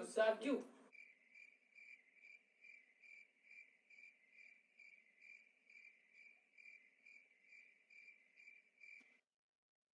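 Cricket chirping in an even, steady rhythm of about two and a half chirps a second, cutting off suddenly near the end.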